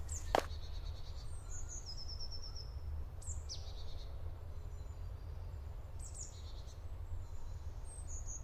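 Songbirds singing in woodland: short, high trilled and falling phrases every couple of seconds over a steady low rumble. One footstep on the gravel track just after the start.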